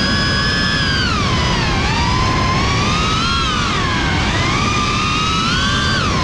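FPV drone's brushless motors and propellers whining, the pitch sliding up and down as the throttle changes, over a steady low rush of prop wash and wind.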